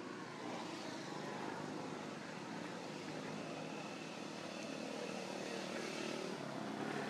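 Steady drone of a distant engine, with faint held tones over a noisy hum.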